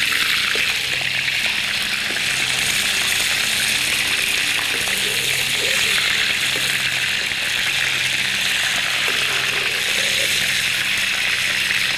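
A whole chicken deep-frying in hot oil in a wok: a steady, dense sizzle as it is turned onto its other side.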